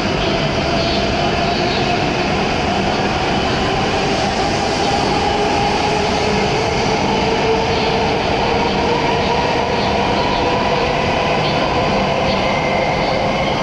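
Hokuriku Shinkansen E7/W7-series train pulling out of the station and accelerating past. A loud steady rumble runs under a motor whine that climbs slowly in pitch as it picks up speed, and the last car goes by near the end.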